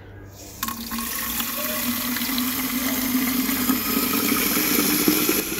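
Water from an outdoor tap running into the open plastic tank of a Gloria FoamMaster FM10 foam sprayer. It starts about half a second in, and a hollow tone in the stream rises slowly as the tank fills.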